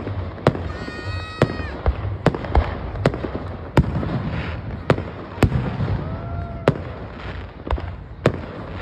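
Aerial fireworks bursting in quick succession, sharp bangs about twice a second over a low rolling rumble. A couple of short high tones rise above the bangs, about a second in and again past six seconds.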